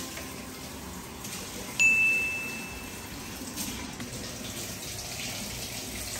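Kitchen tap running steadily into the sink, with a single clear high chime about two seconds in that fades over about a second.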